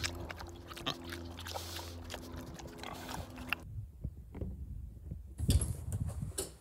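A pig chewing at a wire fence, many small clicks over a steady low hum. After about three and a half seconds it cuts to a quieter room, and near the end come a few low thuds as a door is opened.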